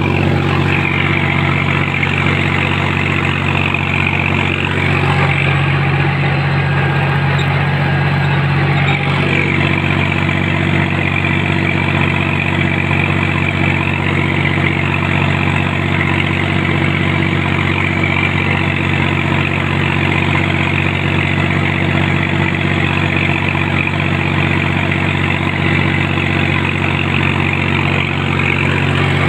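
John Deere 5105 tractor's three-cylinder diesel engine running steadily while working a rotavator, heard from the driver's seat.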